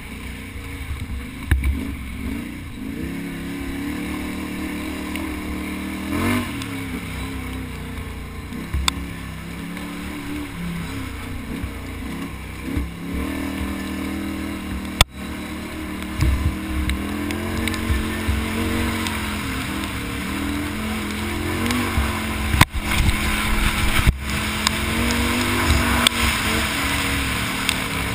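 Can-Am Outlander ATV engine revving up and down as it is ridden hard over rough ground, with rushing wind hiss that builds near the end and a few sharp knocks from bumps.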